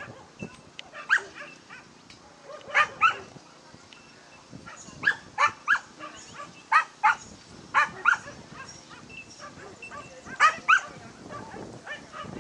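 A dog barking repeatedly in short, sharp barks, often in quick pairs or runs of three, about a dozen in all.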